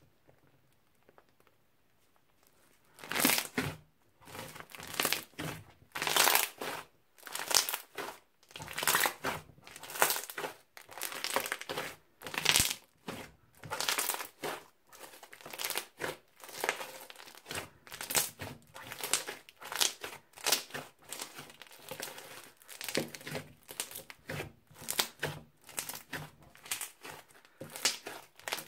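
Bead-filled crunchy slime being squeezed and pressed over and over, starting about three seconds in, giving crackling, popping squishes about once a second.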